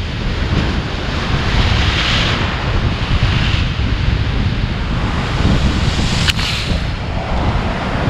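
Pacific surf rushing into a hole in a volcanic rock shelf and washing back out, with swells of rushing water about two and three and a half seconds in. Heavy wind rumble on the microphone runs under it, and there is a single sharp click about six seconds in.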